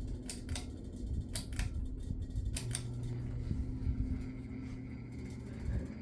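Hampton Bay Landmark III Plus ceiling fan running on its high speed, a steady motor hum, described as its loudest and pretty annoying speed. Several sharp clicks sound in the first three seconds.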